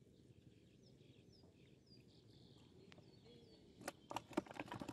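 Faint short, falling bird chirps, then a rapid cluster of sharp clicks about four seconds in.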